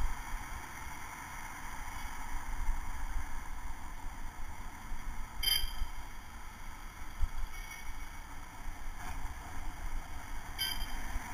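Wind buffeting the microphone of a helmet camera on a moving bicycle, over the steady noise of passing city traffic. A short metallic bell ding sounds three times: about five and a half seconds in, near eight seconds, and near the end.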